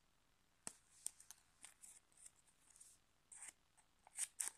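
Scissors snipping small triangles out of a folded piece of paper: a few quiet, short snips with light paper rustling, the loudest two close together near the end.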